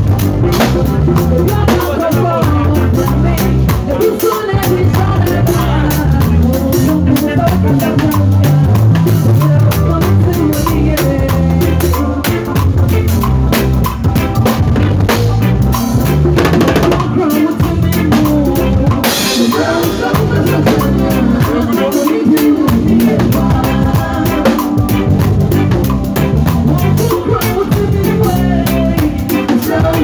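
Live gospel band playing with no let-up: a drum kit driving the groove with busy snare, rimshot and cymbal hits over a running bass line, in raw, unmixed sound.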